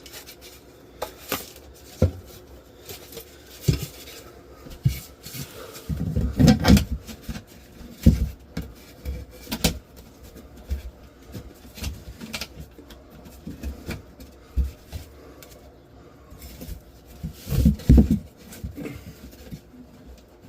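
Irregular knocks, taps and rubbing from a drywall patch piece being handled, turned and test-fitted against a ceiling opening, with a couple of heavier thumps about six seconds in and near the end.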